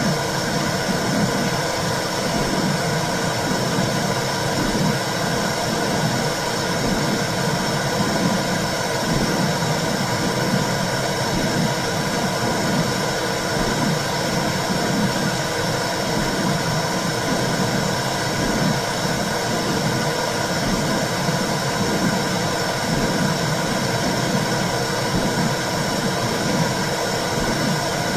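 Womb sound: a steady rushing noise with a regular low pulse throughout, the whoosh of blood flow and heartbeat as heard inside the uterus.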